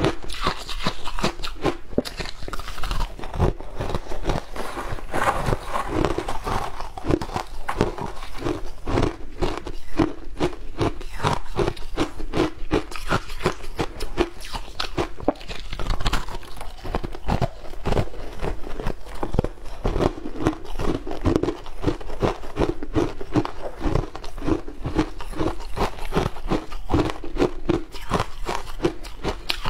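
Person biting and chewing chunks of frosty shaved ice: a dense, steady run of crisp crunches and cracks.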